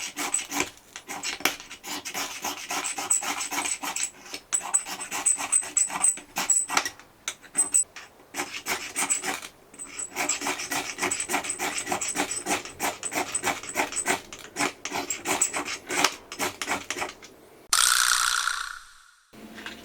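Rapid rasping strokes of a tool working wood, many strokes a second, in runs broken by short pauses. Near the end there is a short, loud rushing noise.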